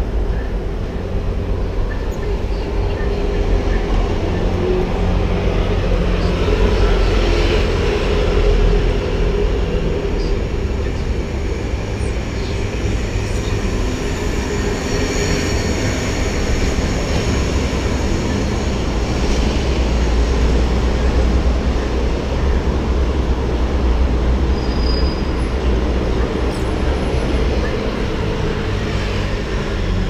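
Steady rumble of city street traffic from the road below. A high whine joins it for several seconds around the middle.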